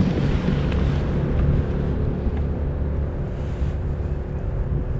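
Wind buffeting the microphone, a loud uneven rumble, with a faint steady hum underneath.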